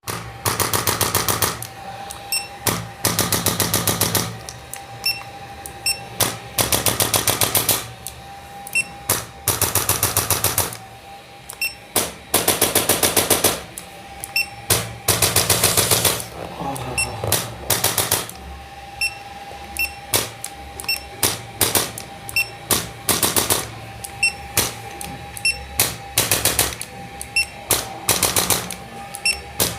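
Handheld chiropractic impulse adjusting instrument firing burst after burst of rapid clicking thrusts, each burst lasting about a second, with single clicks in between.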